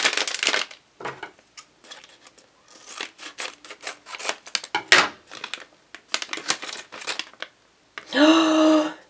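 Foil blind bag of Lego Movie minifigures crinkling in the hands and being cut open with scissors, a run of scattered rustles and snips. Near the end a woman's voice holds a short sung note.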